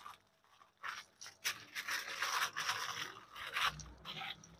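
Aluminium foil crinkling and crackling as it is folded and pressed into a packet around a fish, its edges scraping on the countertop. The crackling starts about a second in and thins out near the end.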